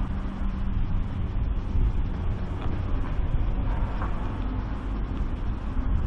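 Steady low rumble of outdoor ambience, with a faint steady hum that fades out about a second in.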